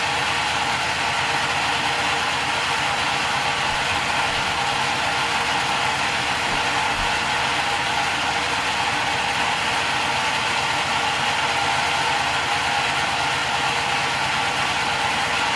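A small spinning mechanism whirring steadily and without a break, an even buzzing hum with faint steady tones.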